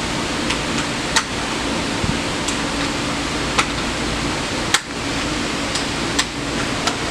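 A string of five gunshots, one about every second and a quarter, the fourth the sharpest, fired at a paper target on an indoor range. Fainter shots from other lanes fall between them, over the steady drone of the range ventilation.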